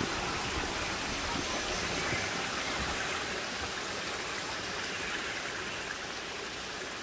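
Shallow brook running over mossy rocks and small cascades: a steady rush of water.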